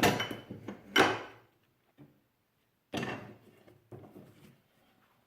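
Sharp metal clunks and knocks as a steel bolt-cutter handle is set into a bench vise and the vise is clamped on it. There are a handful of separate knocks with short pauses between them, the loudest at the start and about a second in.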